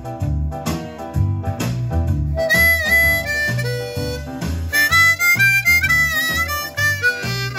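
Blues harmonica played over a blues backing track. The backing band with a walking bass plays throughout, and the harmonica comes in about two and a half seconds in, with held notes that bend in pitch.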